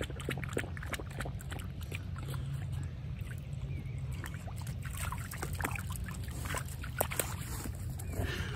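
A boxer dog wading in shallow lake water, its paws making small, irregular splashes and sloshes as it steps about and drinks.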